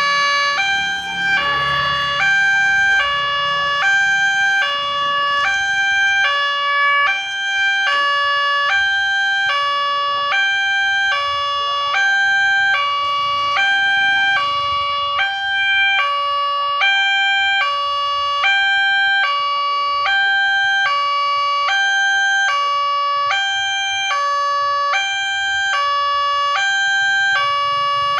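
Railway level-crossing warning siren of a Nataya Putra crossing gate, sounding through a horn loudspeaker. It is a loud electronic two-tone siren that alternates steadily between a higher and a lower note, each held about two-thirds of a second. It warns that a train is approaching.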